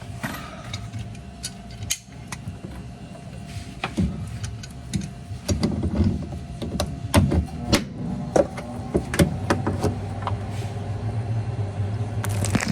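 Clicks, knocks and rattles of hands and tools working at a washer's drain pump and its hose connections, with a low steady hum joining in about two-thirds of the way through.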